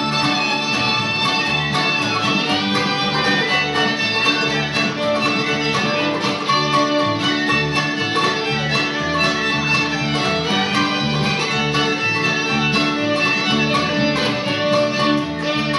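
Live acoustic string band playing an old-time fiddle tune: fiddle leading over strummed acoustic guitars, mandolin, tin whistle and bass, with a steady, regular beat.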